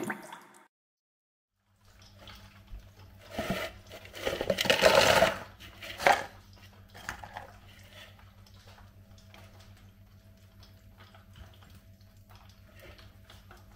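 French fries tipped out of a bowl into a cardboard tray: a loud rustling pour a few seconds in, then a sharp knock and a few light taps, over a low steady hum.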